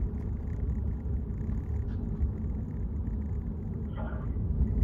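Steady low rumble of a Kawasaki Ninja sport bike under way: engine and wind noise while riding, with no rise or fall in pitch.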